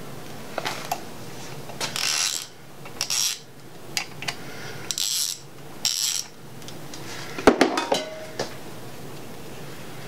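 Socket ratchet clicking in about four short bursts as a connecting-rod cap's bolts are run down and torqued for a Plastigage bearing-clearance check. Near the end comes a sharp metallic clack with a brief ring, the loudest sound here.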